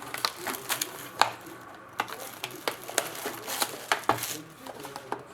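A sealed trading-card box being handled and opened: crinkling wrapper and cardboard with many small sharp clicks and rustles.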